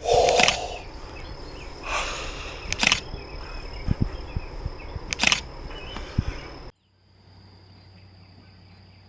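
Outdoor ambience with a steady high-pitched insect drone, broken by three sharp noises about two and a half seconds apart. About two-thirds of the way through, the sound cuts abruptly to a much quieter low hum.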